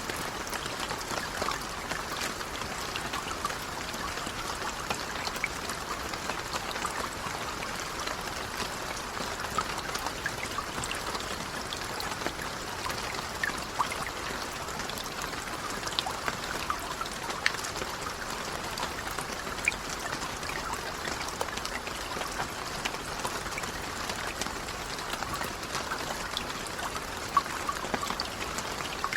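Light rain falling steadily, a constant patter with scattered sharper drips.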